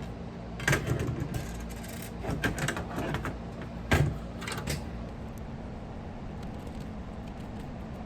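Scattered clicks and knocks of computer hardware being handled and fastened in a PC case, likely the graphics card screw going in, for about five seconds, then only a steady low hum.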